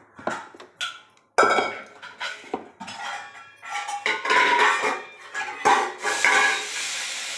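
Metal pots and utensils clinking and knocking. About six seconds in, a steady sizzle starts as masala is dropped into hot frying oil in a metal pan.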